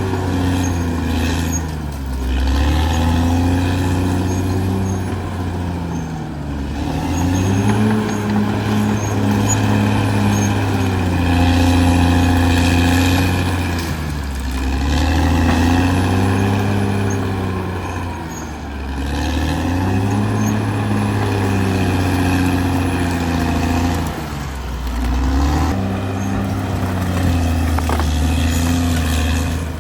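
Caterpillar D6R XL bulldozer's diesel engine running hard. Its note sags and picks back up every several seconds.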